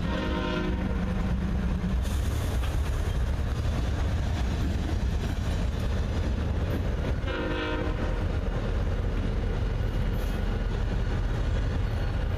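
A string of BNSF diesel locomotives, GE units followed by EMD units, rolling past at close range with a continuous engine rumble. Two brief horn sounds come through, one right at the start and one about seven seconds in.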